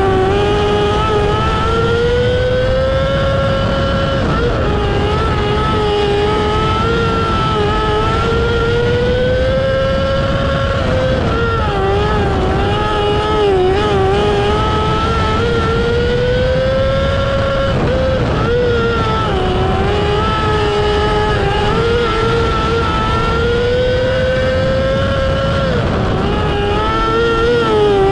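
Micro sprint car's motorcycle engine heard from on board at racing speed, its pitch climbing and holding down each straight and dropping briefly as the throttle comes off for the turns, several times over.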